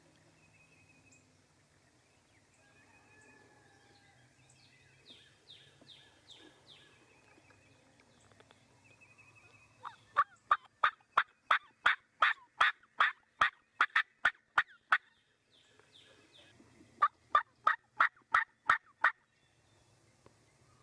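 Turkey call worked by the hunter, yelping in loud, raspy, evenly spaced notes about three a second. A long run of about five seconds comes about halfway in, then a shorter run of about two seconds after a brief pause. Faint songbird notes come before them.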